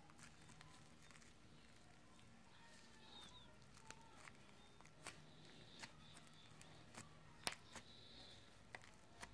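Near silence broken by a few faint sticky clicks and squelches as fluffy slime is kneaded by hand.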